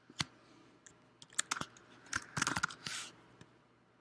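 Keystrokes on a computer keyboard: one key, then a few more, then a quick run of keys about two seconds in as a search word is typed, followed by a brief soft hiss.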